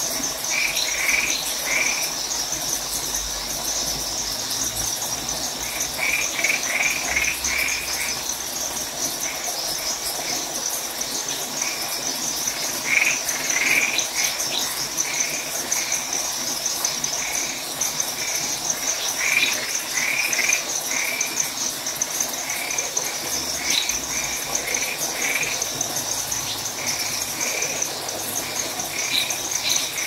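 Night chorus of frogs and insects: a steady high insect trill throughout, with frogs calling in short runs of three to five notes every few seconds.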